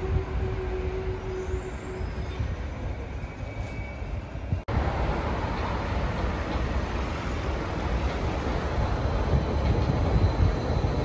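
Berlin U-Bahn small-profile train on line U1 running into an elevated station, its wheels rumbling on the rails and growing louder as it approaches. Before that a steady hum fades out over the first couple of seconds, and it breaks off abruptly about halfway through.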